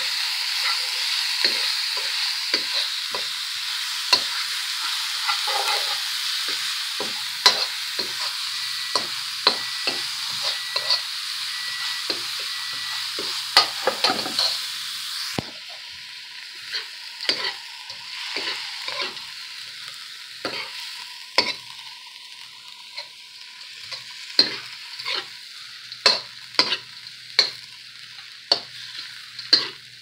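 Fried rice sizzling in a hot pan while a metal spoon stirs it, scraping and tapping against the pan many times. The sizzle drops off suddenly about halfway through, and the stirring strokes carry on over a quieter fry.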